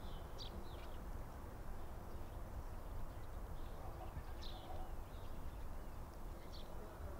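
Outdoor ambience: a steady low rumble like wind on the microphone, with a few short, high bird chirps.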